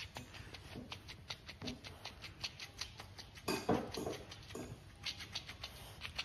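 Chow chow chewing and mouthing a plush fish toy: a run of quick, irregular clicks and crinkles of teeth working the fabric, with one brief louder sound about three and a half seconds in.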